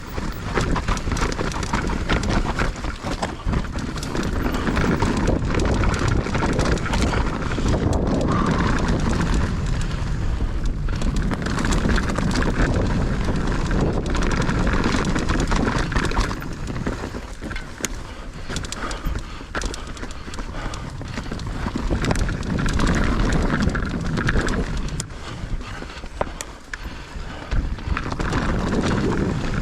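Mountain bike riding down a dirt trail: steady tyre noise with constant rattling and knocking over bumps, and air rushing over the microphone.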